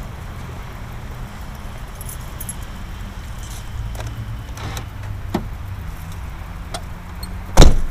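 Car door handled with a few light clicks and rattles over a low steady rumble, then slammed shut with one loud thud near the end.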